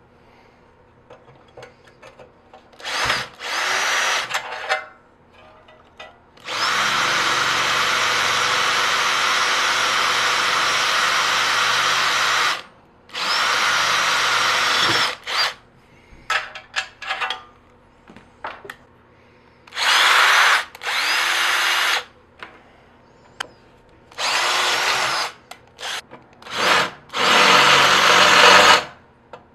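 Handheld electric drill boring into a metal block, run in about seven separate bursts, the longest about six seconds. Each burst starts with a short rising whine as the motor spins up. Small clicks of handling come between the bursts.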